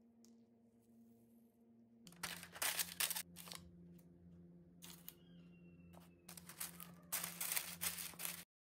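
Paper rustling and crinkling in bursts as cookies are set into a paper-lined cardboard box and a sheet of baking paper is pressed down over them, loudest about two to three and a half seconds in and again near the end; before that, about two seconds of faint steady hum.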